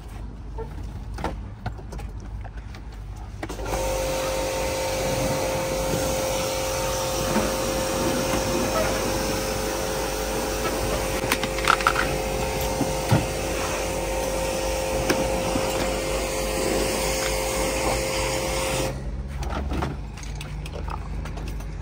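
A motor-driven machine switches on a few seconds in and runs steadily for about fifteen seconds with a constant whine over a rushing hiss, then switches off. Light clicks and knocks of handling sound before and after.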